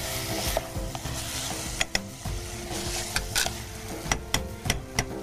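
A metal spoon stirring and scraping vegetables and chana dal frying in a pot, with light sizzling and several sharp clinks of the spoon against the pot.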